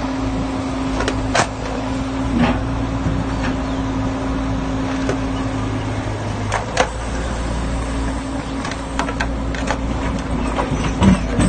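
Excavator working: its diesel engine runs steadily under load while the boom and bucket move soil, with several sharp metal clanks from the bucket and linkage.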